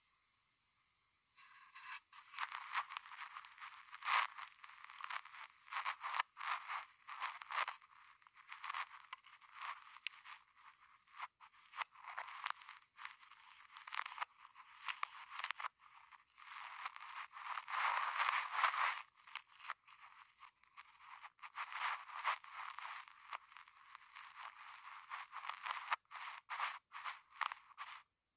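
Close-miked ASMR handling sounds: quick, irregular crinkling, rustling and scratching of handled objects, thin and trebly, starting about a second in and running in clusters almost to the end.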